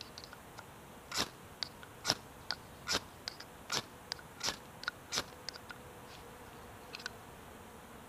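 Dry stick being turned in a large plastic pencil sharpener, its blade shaving off fine wood curls for fire tinder. About a dozen short scraping cuts come roughly three a second and stop about five and a half seconds in, with two faint clicks near the end.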